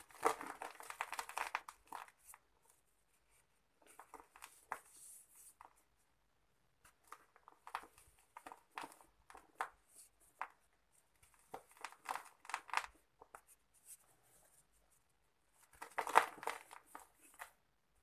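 Lumps of dry sand-cement crushed and crumbled by hand, gritty crunching and crackling with sand trickling through the fingers, in several bursts separated by short pauses.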